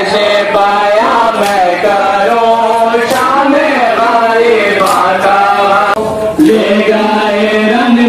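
Men's voices chanting a Muharram noha, a mourning lament, in a steady rhythm, with a brief break about six seconds in. Three sharp strikes cut through the chant about every one and a half to two seconds.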